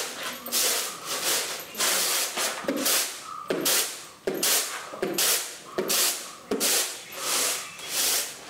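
Kaje red rice grains swishing and rattling in woven bamboo winnowing trays as they are shaken and tossed, in a steady rhythm of about one or two swishes a second. This is rice being winnowed to clear it of husk dust and small stones.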